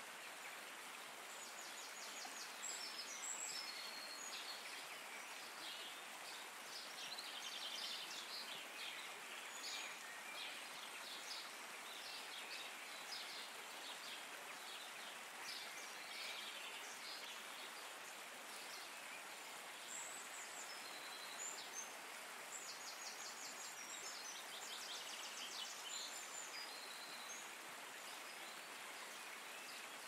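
Nature ambience: a steady watery hiss, with small birds chirping and giving rapid trills over it, busiest in the first third and again about three-quarters through.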